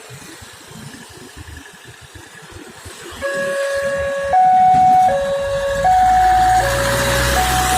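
Level-crossing warning alarm sounding as the barriers are about to close: it starts about three seconds in and alternates two electronic tones, high and low, each held a little under a second. A low rumble sets in at the same time.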